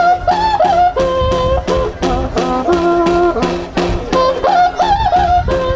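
Andean folk music: a tinya hand drum struck steadily, about three beats a second, under a high, wavering melody of held notes.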